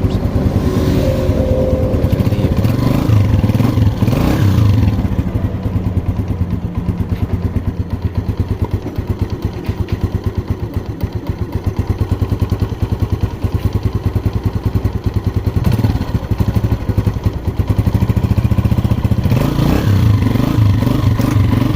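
Motorcycle engine running with its magneto cover off, with a clatter that the mechanic puts down to the cam gear and a vibrating cam pin. It is revved up briefly near the start and again near the end.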